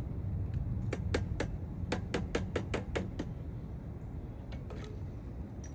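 A quick run of sharp clicks and taps, about four a second, bunched in the first half and thinning out later, as metal parts of an animatronic's frame and support are handled and fitted, over a steady low rumble.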